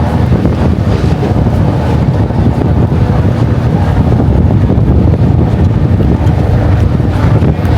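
Strong wind buffeting the microphone, a steady loud rumble with no breaks.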